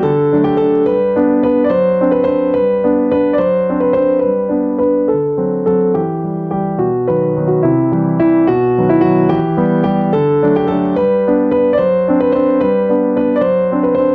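Background piano music: a steady run of sustained notes with chords beneath.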